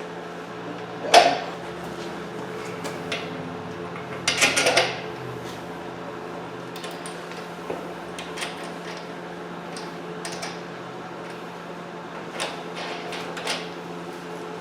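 Metal clinks and knocks of bolts, washers and the snow blower's handle tube being handled while the upper handle is fastened on, the loudest knock about a second in and a cluster about four seconds in. A steady low hum runs underneath.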